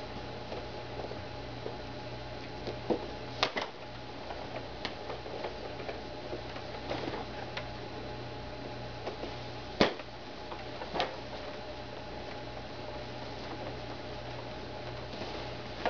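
Steady low electrical hum, with scattered light knocks and clicks as hands grip and press a leather English saddle; the sharpest click comes just before the 10-second mark.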